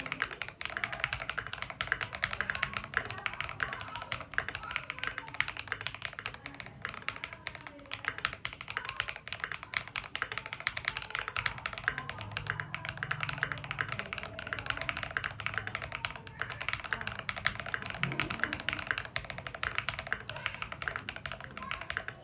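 Continuous fast typing on a Tokyo60 mechanical keyboard with Akko silver linear switches: a dense, steady stream of key clicks that stops at the end.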